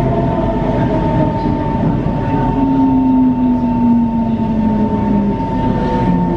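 C151 MRT train heard from inside the car as it slows into a station: a steady rumble of wheels and running gear with a constant high whine. A lower tone glides down in pitch during the braking.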